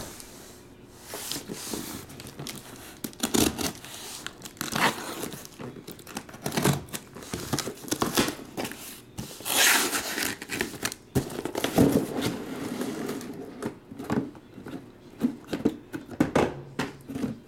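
Plastic packing tape being torn off a cardboard shipping case and the case's flaps pulled open by hand: irregular tearing, crinkling and cardboard rustling.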